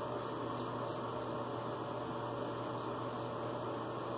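Straight razor scraping across lathered stubble on the neck in a series of short touch-up strokes, with a pause in the middle. A steady background hum runs underneath.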